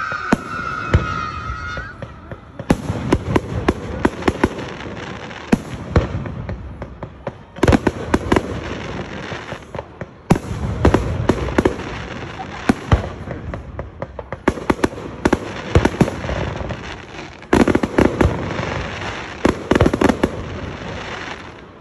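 Aerial fireworks display: shells going off in repeated sharp booms and crackles, coming in clusters of several bangs a few seconds apart. A high wavering whistle sounds for about the first two seconds.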